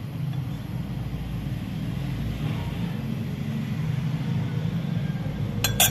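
A steady low rumble of background machinery or traffic, with a few sharp clinks of a metal spoon against a small glass bowl near the end.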